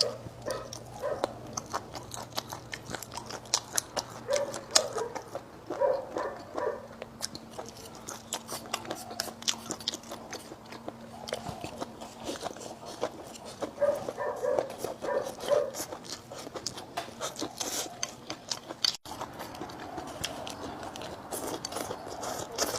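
Close-up chewing and biting of crunchy food, a dense run of irregular small crunches and mouth clicks, with two short clusters of pitched squeaky sounds about five and fourteen seconds in.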